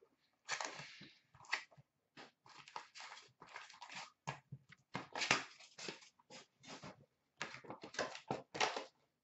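Hands opening a cardboard hockey card box and handling the wrapped card packs inside: a string of irregular crinkles, rustles and cardboard scrapes, with a short pause a little after the middle.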